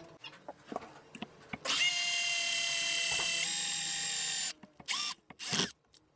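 Cordless drill running steadily for about three seconds as it bores a hole, its pitch stepping up partway through, then two short bursts of the trigger. A few light knocks come before it starts.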